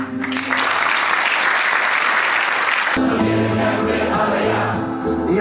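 Audience applauding, cut off abruptly about three seconds in. Two acoustic guitars then begin the next song's intro.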